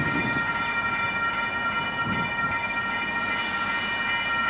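KiwiRail DC-class diesel-electric locomotive sounding its horn in one long, steady blast, with engine rumble beneath. A hiss comes in about three seconds in.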